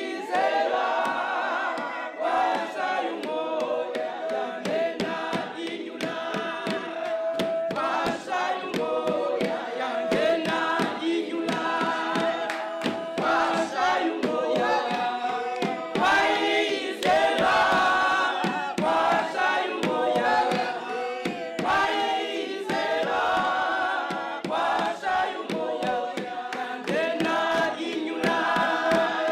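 A choir of voices singing together.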